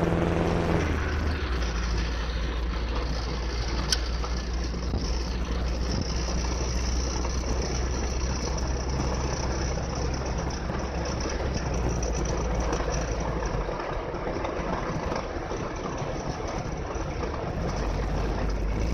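Inside an old Volvo while driving: a steady low engine drone under road noise, with a faint high hiss. The engine note drops away about fourteen seconds in and returns near the end. A single sharp click about four seconds in.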